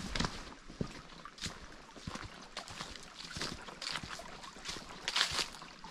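Footsteps crunching and swishing through dry fallen chestnut leaves on a dirt path, one step every half second to a second.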